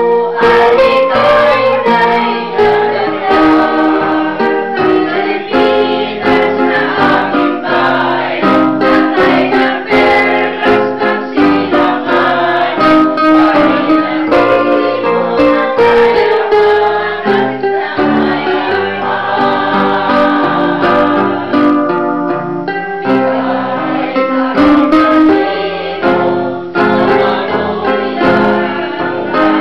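A small choir of women singing together from sheet music, accompanied by an electronic keyboard.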